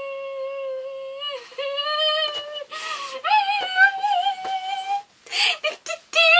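A woman singing wordless high notes in delight. The first long notes are held steady and step up in pitch; then a higher note wavers, and near the end it breaks into short, choppy notes.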